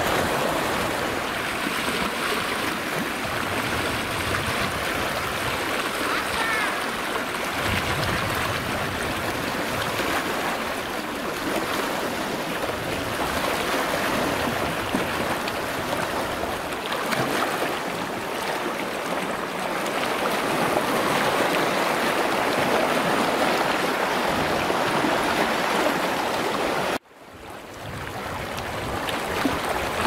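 Small sea waves washing and lapping against a rocky shore in a steady rushing wash. Near the end the sound cuts out abruptly and fades back in.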